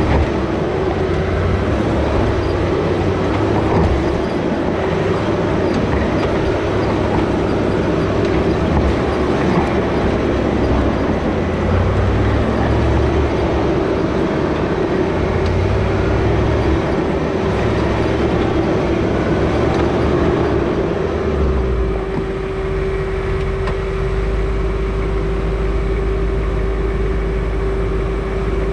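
Land Rover Discovery 2 driving slowly over a rocky dirt trail: engine running and the rumble of the truck over stones, heard close from a camera under the front bumper. About 21 seconds in the uneven rumble gives way to a steady low engine drone as the truck comes to a stop.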